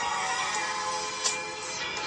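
Rap beat playing: sustained melodic notes, with a sharp hit about a second and a quarter in.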